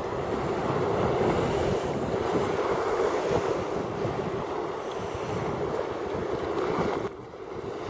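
Rough sea surging and breaking against a stone harbour wall, a steady rushing wash of water, with strong wind buffeting the microphone. The sound drops a little about seven seconds in.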